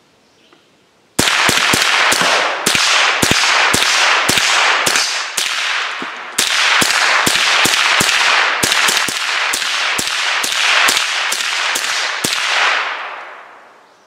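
Remington 597 semi-automatic .22 Long Rifle rifle fired as fast as the trigger can be pulled to empty a magazine: a long, rapid string of sharp cracks, about two to three a second, each trailed by a short echo. The firing starts about a second in, breaks off for a moment about halfway, and stops about two seconds before the end.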